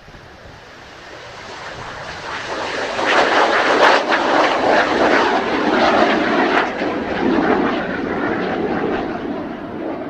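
Kawasaki T-4 jet trainer's twin turbofan engines at takeoff power as it lifts off from a touch-and-go and climbs away. The jet noise swells over the first few seconds, is loudest in the middle, then eases off.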